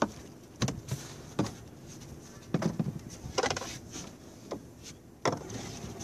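Irregular knocks and clatters of gear and hands against a small boat's hull and gunwale, about eight in all, the loudest about five seconds in, over a steady low background noise.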